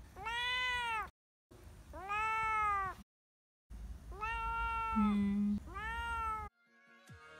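Tabby kitten meowing four times, each call rising and then falling in pitch, with abrupt silent gaps after the first two. A short low steady hum sounds during the third call.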